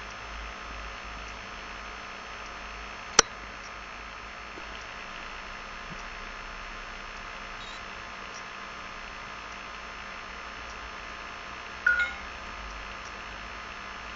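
Steady low electrical hum and hiss, broken by a single sharp click about three seconds in and a short high blip near twelve seconds.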